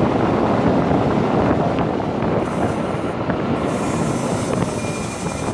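Wind rushing over the microphone while riding a Nanrobot LS7+ electric scooter at speed on asphalt, mixed with road noise from its street tires. The noise eases a little toward the end, and a faint, thin, high steady whine comes in shortly before the end.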